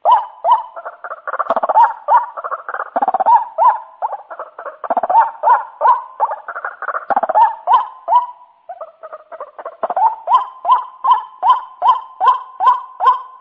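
White-breasted waterhen (ruak-ruak) calling, a lure call for drawing the birds in: a fast series of repeated 'ruak' notes, each rising then dropping in pitch. Overlapping calls in the first half thin to one even series of about two to three calls a second in the second half.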